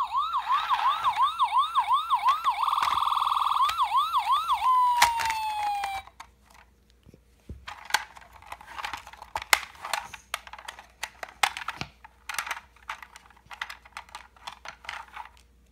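Imaginext Rescue Heroes ambulance toy's electronic siren yelping in fast rising sweeps, about three a second, held on one tone for a moment in the middle and ending on a falling tone about six seconds in. After it, clicks and rattles of hard plastic as the toy is handled and its rear door opened.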